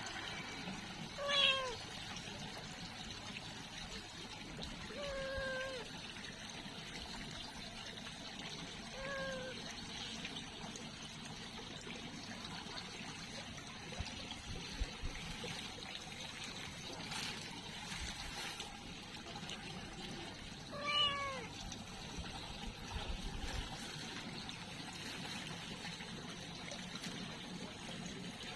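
Young domestic cat meowing four times, short calls that fall in pitch, spaced several seconds apart, with a long gap before the last.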